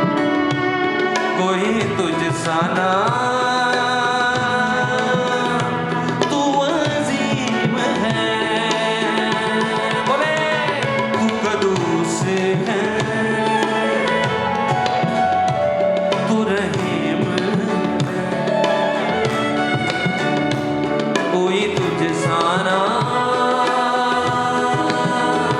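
Live worship music: voices singing a sustained melody over tabla and other accompanying instruments.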